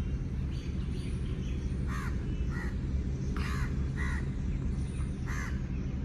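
A bird giving five short, harsh calls, spaced roughly half a second to a second apart, over a steady low rumble.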